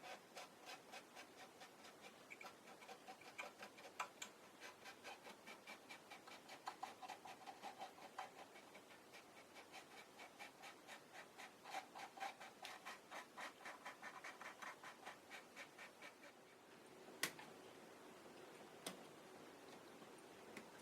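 Quick, even back-and-forth scraping strokes on a plastic model kit part, about three to four a second, as when sanding or filing, then two sharp clicks near the end.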